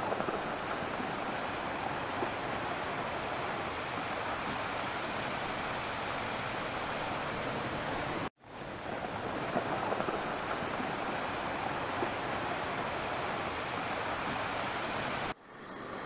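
Shallow river water rushing over stones in a riffle: a steady rush that breaks off abruptly about eight seconds in and again near the end.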